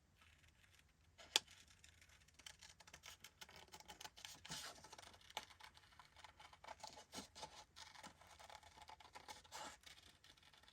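Scissors cutting a circle out of cardstock: quiet, repeated snips and scratchy paper rustles as the blades open and close and the card is turned, with one sharper click about a second and a half in.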